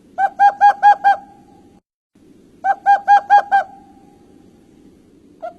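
A bird calling in bursts of about five quick, evenly spaced pitched notes. There are two full bursts, with a third starting near the end, over a low rumble.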